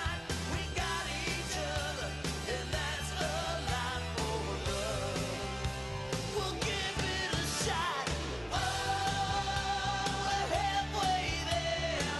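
Upbeat rock-pop song with a lead vocal over a steady beat; the singing holds long notes and the music gets a little louder in the second half.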